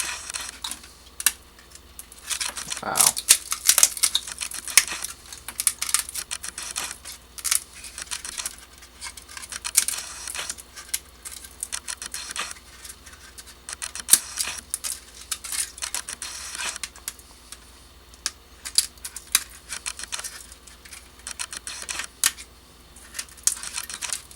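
Support material being picked, scraped and snapped off a wood-filament 3D print: an irregular run of small clicks, ticks and short scrapes.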